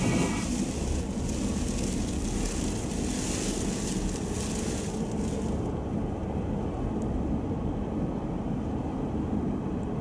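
Steady low rumble of a vehicle driving, heard from inside the cabin, with a high hiss over the first half that stops about five and a half seconds in.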